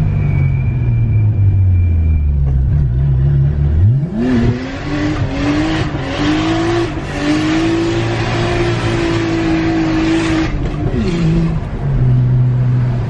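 Nissan RB25DET turbocharged inline-six in an R33 Skyline, its exhaust manifold gaskets freshly replaced, revving hard. The engine note sinks at first, climbs steeply about four seconds in and is held high with a loud rush for several seconds, then drops back to a low note near the end.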